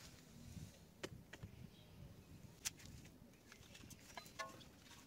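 Near silence with a few faint, sharp clicks and light knocks of brake parts and tools being handled.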